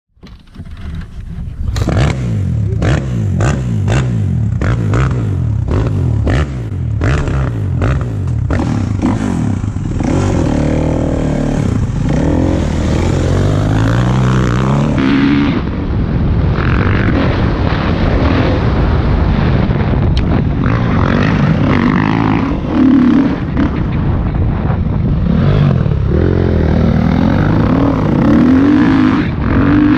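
Dirt bike engine heard from a camera on the bike. Over the first several seconds it gives a run of sharp knocks, a few a second, then it revs up and down as the bike accelerates and shifts along the trail.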